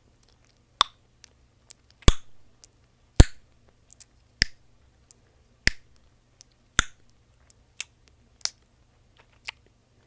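Mint chewing gum snapping and popping in the mouth close to the microphone. There are about eight sharp, loud pops roughly a second apart, with fainter wet clicks in between.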